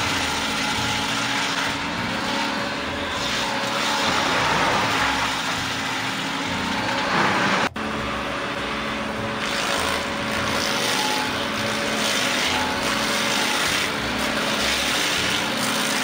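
Vermeer stump grinder running steadily, its engine under load as the cutter wheel grinds into a tree stump. The sound drops out for an instant about halfway through.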